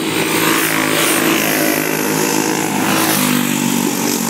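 Racing go-kart engines buzzing at high revs as the karts pass close by, with another kart's engine note coming in louder about three seconds in.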